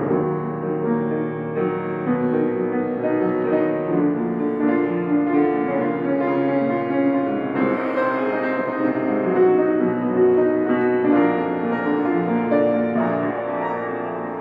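Solo piano music played slowly, with held notes ringing over one another; a fresh chord is struck about eight seconds in.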